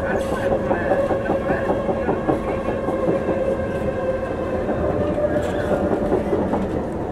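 Singapore MRT train running, heard from inside the passenger carriage: a steady rumble of wheels on track with a steady whine over it.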